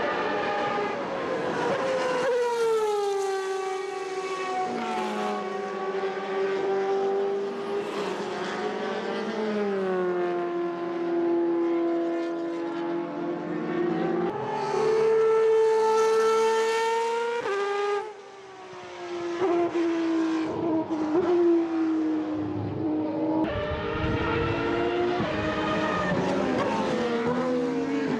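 Superleague Formula Panoz DP09B race cars with 4.2-litre V12 engines running at speed on track. The engine pitch falls and rises with gear changes, with a short dip in level about eighteen seconds in before the engines pick up again.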